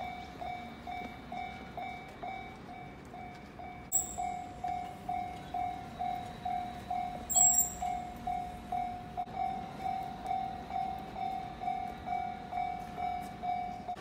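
Japanese railway level-crossing warning bell ringing, a steady electronic ding repeated about two and a half times a second, the signal that the gates are down for an approaching train. Two short sharp clinks stand out, about four seconds in and again near the middle, the second the loudest.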